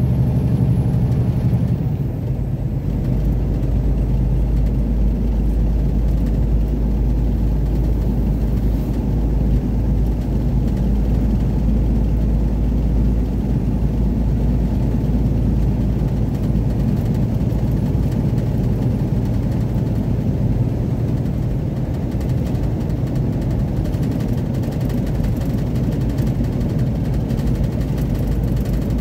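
Steady engine drone and road rumble inside a truck's cab while driving at road speed, the deep rumble growing a little stronger about two seconds in.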